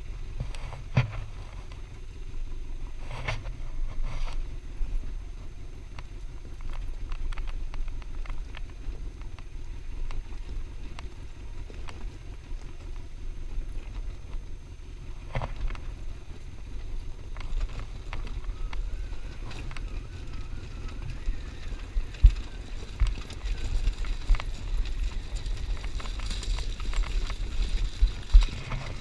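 Side-by-side off-road vehicle's engine running at low, steady speed as it rolls over a rocky trail, with knocks and thumps from the rough ground, the sharpest near the end.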